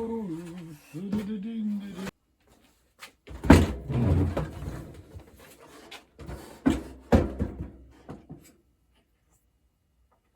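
A short hummed or murmured voice, then a handful of hard knocks and clunks, as of wood and shop gear being moved and set down, the loudest about three and a half seconds in.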